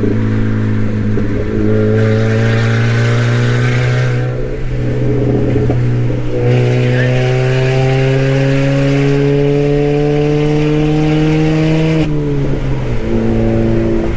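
A 2016 Chevy Cruze with its resonators cut off and the exhaust dumped out the bottom, heard from inside the cabin under hard acceleration. The engine note climbs steadily, eases off about four seconds in, climbs again, and drops near the end.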